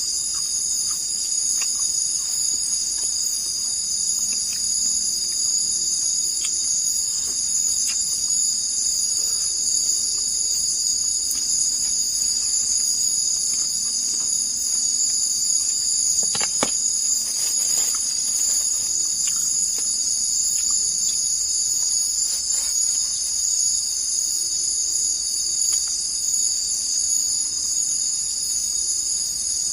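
A steady, high-pitched chorus of insects in the forest, several layers of continuous trilling. A faint click or tap about halfway through.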